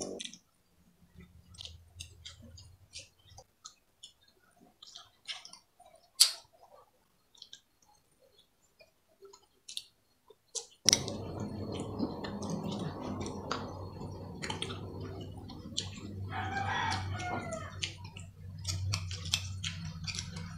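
Mukbang eating sounds: spoons clinking against glass bowls, chewing and lip smacks in scattered clicks, one sharper clink about six seconds in. About sixteen seconds in, a rooster crows for a second or so in the background over a steady low room noise.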